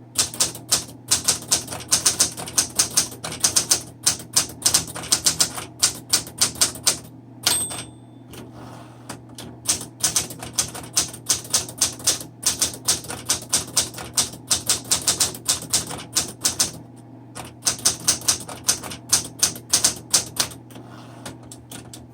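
1972 Smith Corona Sterling manual typewriter being typed on: fast runs of sharp key strikes with short pauses. The carriage bell rings once about seven seconds in, followed by a brief lull before typing resumes.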